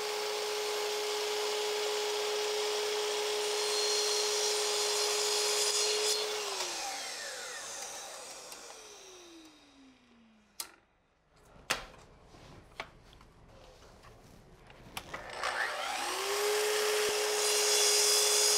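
A sliding miter saw runs and cuts through a short piece of oak molding, then is switched off and winds down with a falling whine over about four seconds. A few sharp clicks and knocks follow. Then the saw starts again, spinning up and cutting near the end.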